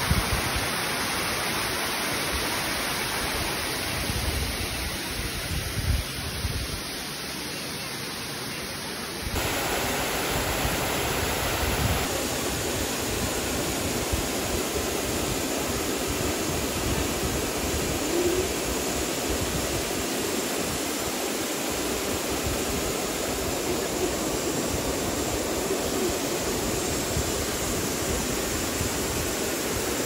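Waterfall cascading over rock into a pool: a steady, even rush of falling water, stepping up a little louder about nine seconds in.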